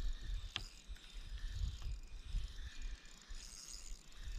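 Daiwa Legalis 3000 spinning reel being cranked, bringing in a hooked rainbow trout, with a sharp click about half a second in and low handling knocks.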